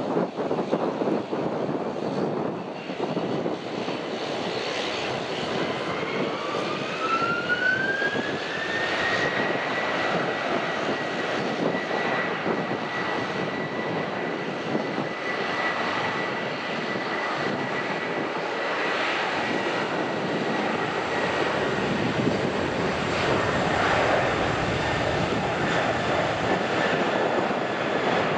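Jet airliner's engines running over a steady rush; about six seconds in, a whine rises in pitch and then holds steady: the engines spooling up to takeoff thrust.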